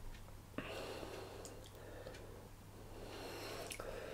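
Faint handling of a plastic chilli sauce bottle as sauce is put onto a slice of flatbread, with quiet breathing; one sharp click about half a second in and a few light ticks after.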